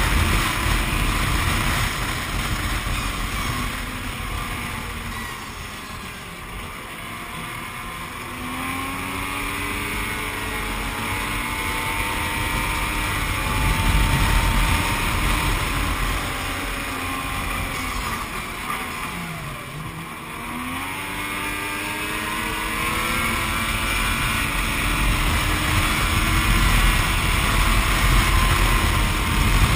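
Yamaha snowmobile engine running under way, heard from the rider's seat. Its pitch eases off and rises again twice with the throttle, once about a quarter of the way in and in a sharper dip about two-thirds in, over wind noise on the microphone.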